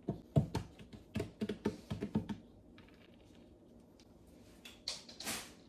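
Close-up crunching of a crunchy pecan cookie topping: a quick run of about a dozen small crisp clicks over the first two seconds. A short breathy hiss follows a little after five seconds.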